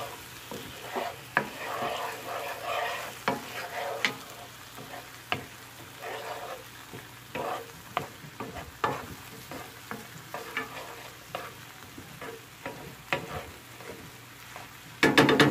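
Wooden spoon stirring and scraping diced onion, garlic and ginger around a nonstick frying pan, with irregular scrapes and taps over a light sizzle of oil. Near the end comes a short, much louder burst of clattering.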